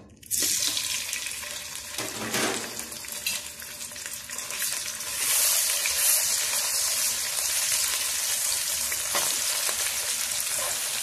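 Pounded dried-chilli and shallot paste hitting hot oil in a wok and frying with a loud sizzle that starts suddenly and grows a little louder about halfway, while a metal spatula stirs and scrapes it around.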